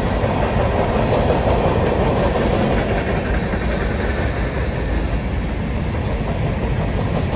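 Norfolk Southern freight train rolling steadily past, a continuous rumble and rattle of wheels on rail.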